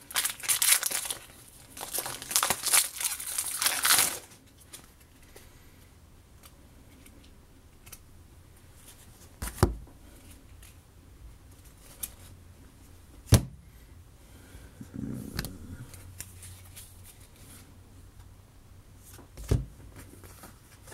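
Foil wrapper of a baseball card pack being torn open and crinkled for about the first four seconds. After that, quiet handling with three sharp knocks spread through the rest.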